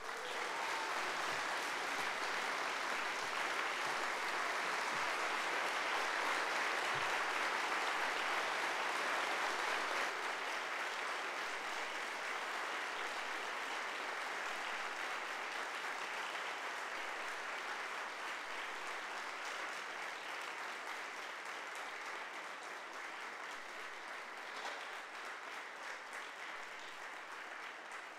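Long applause from a large audience, loudest in the first ten seconds or so and slowly thinning toward the end.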